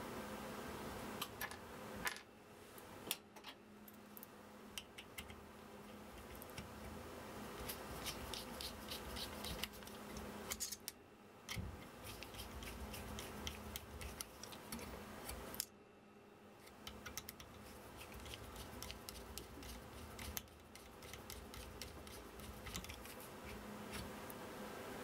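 Small hex screws being worked by hand through tight holes in a laser engraver's aluminium frame: faint runs of clicks and scrapes from the tool and threads, with brief pauses.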